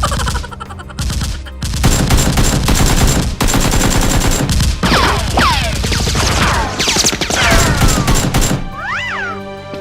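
Rapid bursts of automatic gunfire sound effects, with a few falling whistles among the shots, over background music with a steady low drone.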